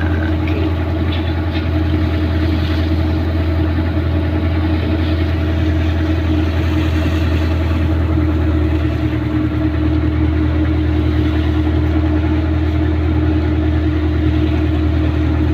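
Engine of a wooden pompong ferry boat running steadily, a deep, even drone with a constant hum that does not change.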